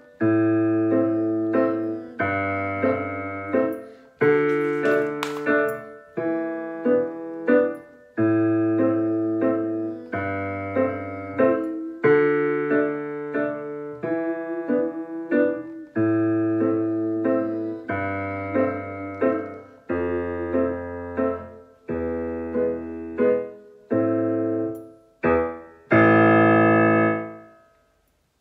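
Roland digital piano playing a waltz accompaniment: a low bass note followed by chords in each bar, a new bar about every two seconds. It ends on a long held chord that dies away near the end.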